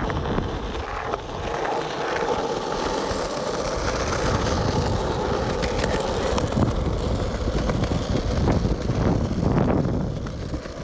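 Skateboard wheels rolling over rough asphalt: a steady gritty rumble with a faint hum, and a few sharp knocks in the second half.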